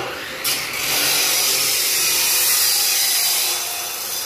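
Abrasive chop saw running, its cut-off wheel grinding through steel with a loud, high hissing screech from about half a second in.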